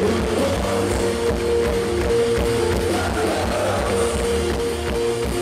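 Live rock band playing: electric guitars over a drum kit, with steady held notes ringing above the chords.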